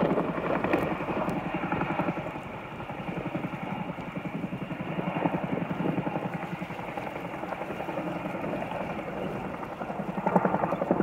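Helicopter rotor blades beating in a rapid, even chop, swelling louder briefly near the end.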